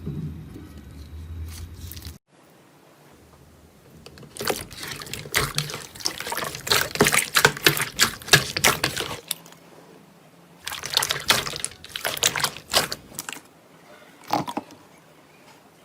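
Slime being squished and kneaded by hand: two long runs of wet clicking and popping, after a low hum that cuts off about two seconds in.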